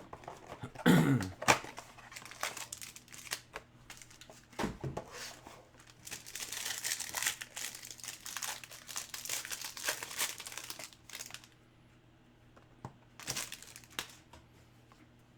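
Plastic wrapping on a trading-card pack crinkling and tearing as it is handled and opened, in bursts: a sharp rustle about a second in, a long stretch of dense crinkling from about halfway, and a short final burst near the end.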